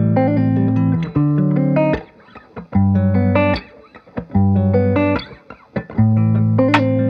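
Background music: plucked guitar with bass playing short phrases of notes, pausing briefly between phrases.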